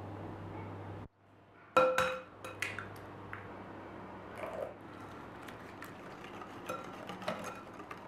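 A sharp clink against a glass mixing bowl about two seconds in, ringing briefly, followed by a few smaller cracks and taps. After that, light scattered clinks of a metal spoon against the glass bowl.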